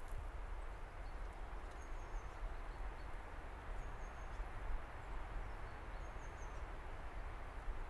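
Woodland ambience: a steady rush of wind with a low rumble, and a few brief, high bird chirps every couple of seconds.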